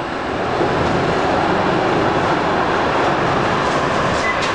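An ex-Vienna SGP E1 tram with its C3 trailer passing, its wheels rolling on the rails in a steady rumble that grows louder about a second in. A brief high squeal comes near the end.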